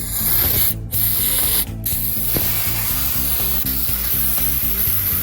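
Spray cleaner hissing onto an intake air temperature sensor to wash the sludge off it: two short spurts, then one long continuous spray.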